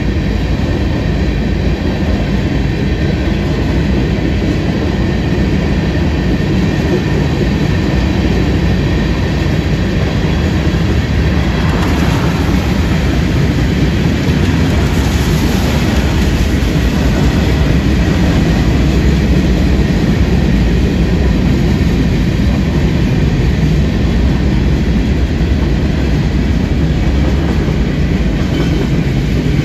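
A freight train's cars rolling steadily through a grade crossing at speed, a continuous heavy rumble of wheels on rail.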